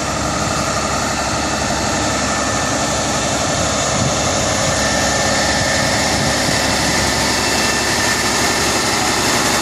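Heavy wrecker tow truck's diesel engine running steadily.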